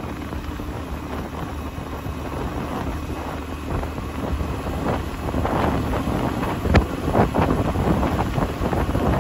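Wind buffeting the microphone over the steady running of a motor scooter, heard from the rider's seat as it rolls along the road. The wind noise grows louder in the second half, with a short knock about seven seconds in.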